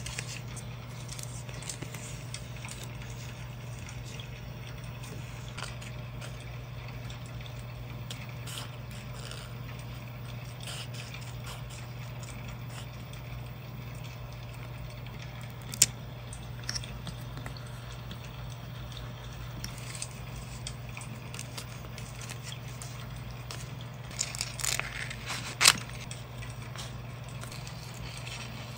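Close-up crafting sounds: a clear plastic sticker packet and paper stickers rustling and crinkling, with scissors cutting out a sticker and light clicks of tweezers. There are two sharp clicks, one about halfway and one near the end, over a steady low hum.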